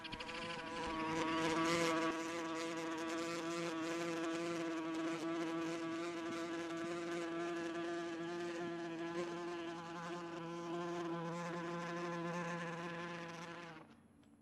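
A sustained buzzing drone on one steady pitch, rich in overtones with a slight waver, that cuts off near the end.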